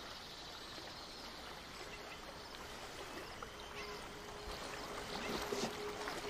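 Lake water lapping and gently splashing around a swimmer. A faint steady hum starts about two seconds in.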